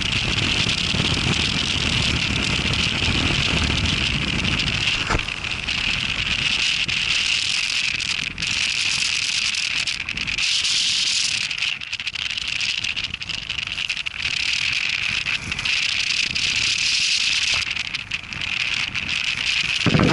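Strong wind buffeting the microphone, with a steady hiss of wind-driven rain. The low rumbling gusts are heaviest in the first few seconds and ease off after that.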